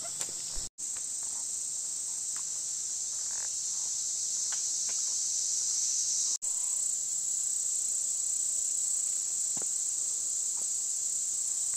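Steady, high-pitched chorus of insects trilling in summer woodland. The sound cuts out completely for an instant twice, just under a second in and about six and a half seconds in.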